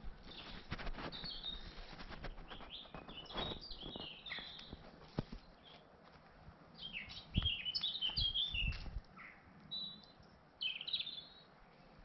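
Small songbirds chirping in quick runs of high notes, in several spells, over the crunch and click of footsteps on a woodland path, with a few low thuds about two-thirds in.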